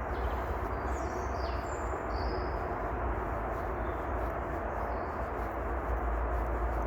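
A few short, high bird chirps between about one and two and a half seconds in, over a steady background hiss with a low rumble.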